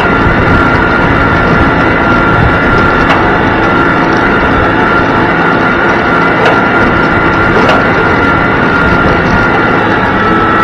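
Tractor engine running steadily under load while pulling a field cultivator through the soil, with a steady high-pitched whine over it. A few sharp knocks stand out about three, six and a half, and seven and a half seconds in.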